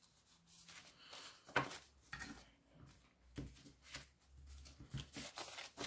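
Faint rustling and light taps of a stack of banknotes being handled and set down into card holders, a few short bursts with the loudest about one and a half seconds in.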